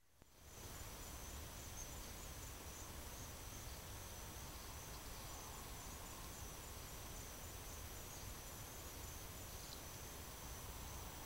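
Faint night insect chirping, an evenly pulsing high trill, over the steady hiss of a Moultrie M-999i trail camera's built-in microphone.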